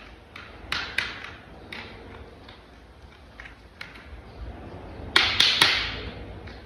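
Plastic toy vehicle parts being handled and fitted together: a series of light clicks and taps, with a louder cluster of snaps about five seconds in.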